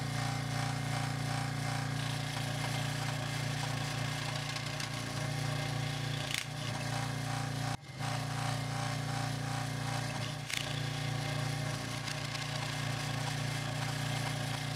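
Delta scroll saw running steadily, its blade reciprocating and cutting through thin plywood, now driven through a 3D-printed replacement for its failed plastic motor coupler. The sound breaks off for an instant about eight seconds in.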